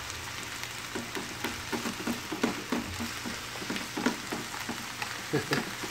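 Spinach sizzling in hot olive oil in a ceramic-coated skillet, with a utensil scraping through the leaves against the pan about three times a second as it is stirred.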